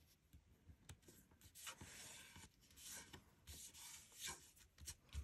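Faint scratchy rubbing of fingertips over paper cardstock in short, uneven strokes, with a few small clicks.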